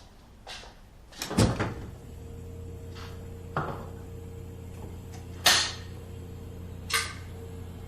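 A door or cupboard shutting with a heavy thud, followed by a few sharp knocks and clicks. A steady low hum sets in just after the thud.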